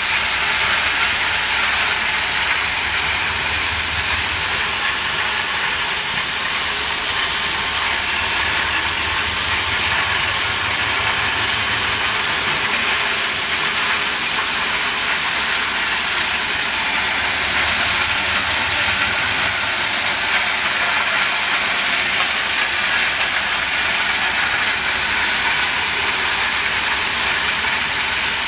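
Train running on the rails: a steady, loud mechanical clatter and rumble that does not let up.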